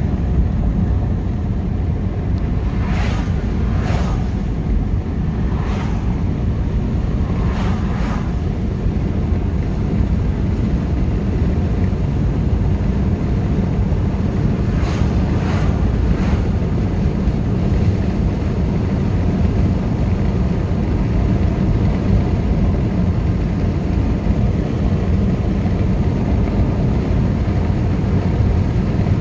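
Steady low road and engine rumble of a moving car, heard from inside the cabin. A few brief sharper sounds stand out over it, several in the first third and a pair about halfway through.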